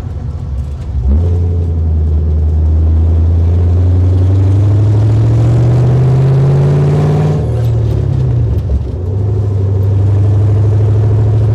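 A 1968 Camaro SS's LSX V8 engine pulling away from a stop, heard from inside the cabin. The engine note climbs steadily for about six seconds, falls away briefly, then settles into a steady cruise.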